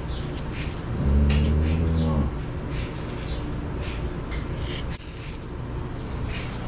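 A dairy cow mooing once, a low call of about a second and a half starting about a second in. Short hisses repeat in the background.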